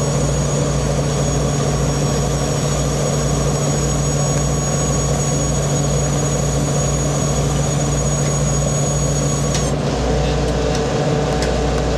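Steady drone of a purse seiner's diesel engines and deck machinery as the net is hauled in. About ten seconds in, a high whine cuts off and the drone changes note.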